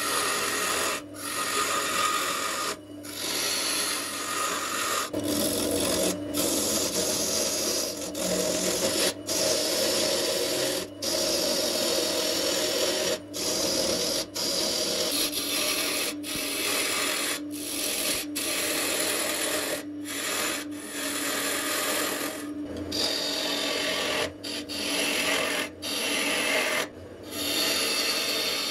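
Gouge cutting a spinning wooden blank on a wood lathe: a continuous rasping hiss of shavings peeling off, broken by brief gaps every second or two as the tool lifts between passes.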